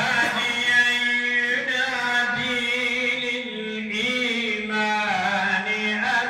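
A solo male voice reciting the Qur'an aloud in Arabic, in the melodic chanted style, holding long notes that waver and bend in pitch.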